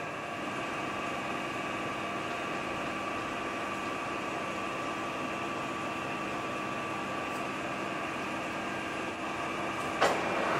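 Steady mechanical hum of workshop machinery, several fixed tones at an even level, with one sharp click about ten seconds in.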